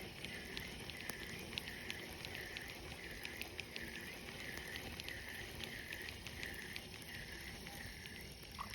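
Insects chirping in a steady rhythm, a little more than twice a second, over a constant high-pitched buzz, with a few faint ticks.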